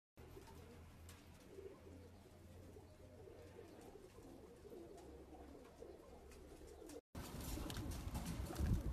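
Domestic pigeons cooing softly. About seven seconds in the sound cuts out for a moment and returns louder, with scattered clicks.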